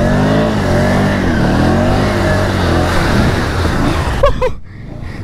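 Can-Am Outlander ATV engine revving up and down under load as it churns through deep mud ruts, its pitch rising and falling with the throttle.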